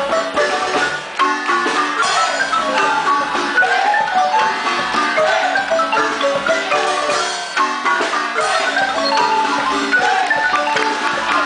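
Marimba music playing a lively zapateado dance tune, quick mallet-struck notes over a steady beat.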